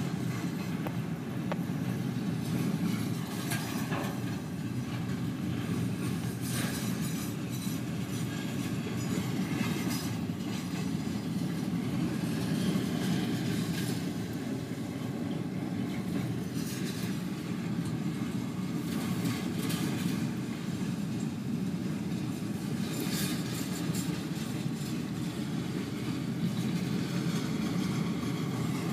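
Intermodal container cars of a freight train rolling past: a steady rumble of wheels on rail with clickety-clack over the joints. Brief high-pitched wheel squeals come and go.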